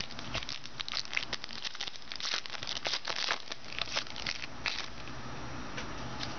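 Crinkling and crackling of a plastic trading-card pack wrapper being handled, a dense run of sharp crinkles that thins out near the end.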